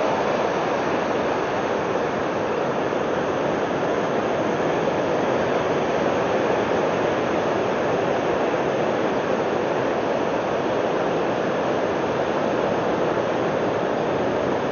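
Surf breaking on a sandy beach: a steady, even wash of noise with no single wave standing out.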